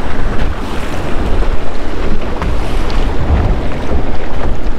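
Loud wind rumbling on the microphone over rough, choppy sea, with waves churning around a small boat and breaking on jetty rocks.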